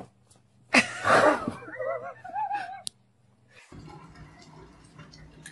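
A sudden loud burst of noise, then a person's high, wavering laughter for about a second. After that only a faint steady low hum remains.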